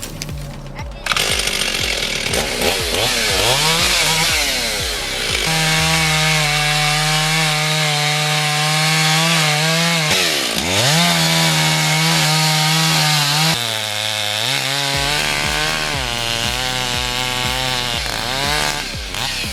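Chainsaw running at high revs while cutting, its pitch dipping and recovering as it bogs in the wood, and dropping lower for a moment later on.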